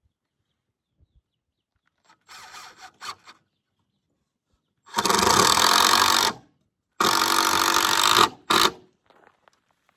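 Power drill running in bursts: a short quieter run, then two louder steady runs of about a second and a half each, and a brief final burst.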